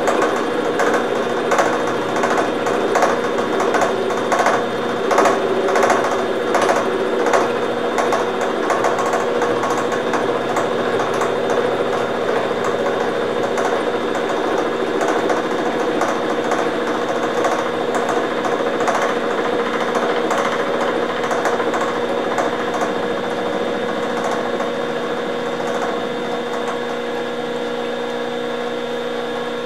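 Milling machine running a gear cutter through a spur gear built up with silicon bronze weld, with coolant flowing over the cut. Steady motor hum with rhythmic cutting ticks roughly every two-thirds of a second; the ticks fade out about halfway through while the hum carries on.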